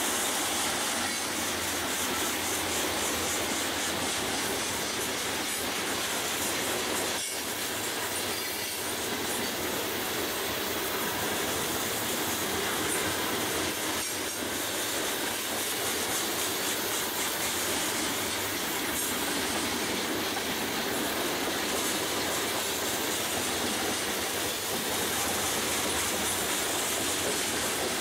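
Freight cars of a long mixed train (covered hoppers, tank cars, gondolas) rolling past: the steady noise of steel wheels on rail, with wheels clicking over rail joints and one sharp click about seven seconds in.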